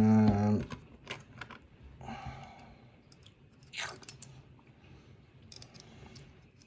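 A person makes a brief wordless vocal sound, then a key works in the lock to lock it back up: small metal clicks and scrapes, with a few sharper clicks.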